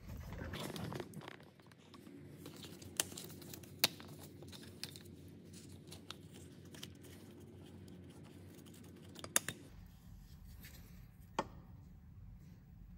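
A wiring harness being unclipped from a plastic underbody guard and handled: faint scraping and rustling of plastic with a few sharp clicks as the clips let go.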